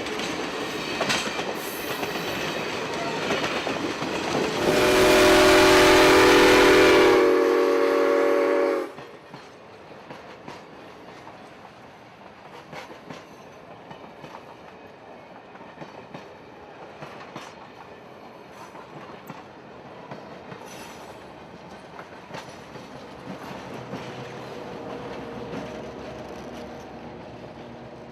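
Steam locomotive whistle blowing one long blast of about four seconds, several notes sounding together, over the rumble and clicking of the passing train. After the blast the train fades to a quiet rumble with scattered wheel clicks.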